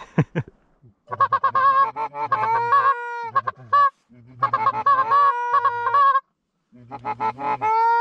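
Canada goose call blown at incoming geese: quick runs of clucks and short honks, each ending in a long drawn-out honk. This happens three times, the sound cutting off abruptly between runs.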